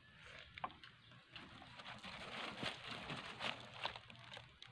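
Close-up eating sounds: chewing and lip-smacking on grilled fish, with scattered small wet clicks.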